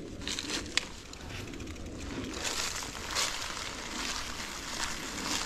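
Dry leaves and twigs crunching and crackling, with one sharp snap just under a second in. The crunching gets louder and hissier from about two and a half seconds in.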